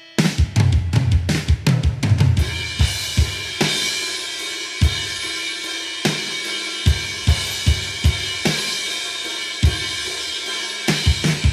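Drum kit playing in a heavy rock recording: it comes in suddenly with a fast run of kick and tom hits, then settles into a steady cymbal wash with spaced bass-drum hits, and closes with another quick cluster of kicks near the end.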